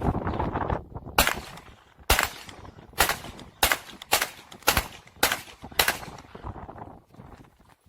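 A Glock 34 Gen4 9mm pistol firing eight shots, the first few about a second apart and then quicker, about two a second.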